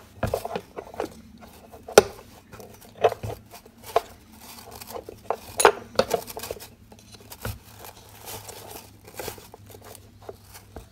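A steel spanner clinking and clicking against the nut and the aluminium rotor arm as the arm is fitted and tightened onto the swivel of a surface cleaner's rotary head: scattered sharp metallic knocks at an uneven pace, loudest about two seconds and six seconds in.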